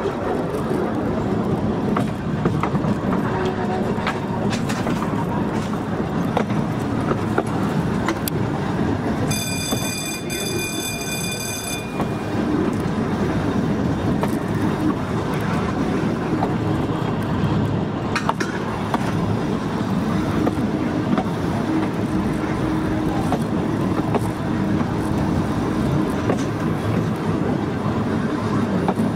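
Volk's Electric Railway car running along its narrow-gauge track: a steady rumble of motor and wheels, with occasional clicks over the rail joints. About nine seconds in, a shrill warning tone sounds for about two and a half seconds.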